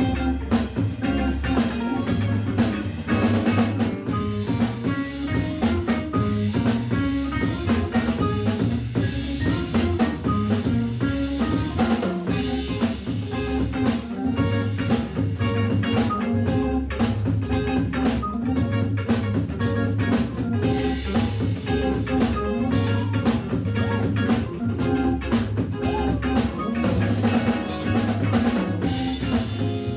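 Jazz organ trio playing live: Hammond B3 organ through a Leslie speaker, guitar and a drum kit keeping a steady beat.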